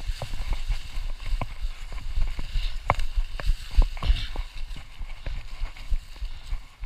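Mountain bike riding over a leaf-covered dirt trail: a low rumble with a string of sharp clicks and rattles as the bike jolts over bumps, busiest in the middle.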